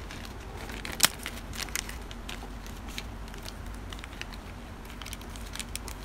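Clear plastic parts bag crinkling and crackling as it is handled and opened, a rapid scatter of sharp crackles with the loudest about a second in.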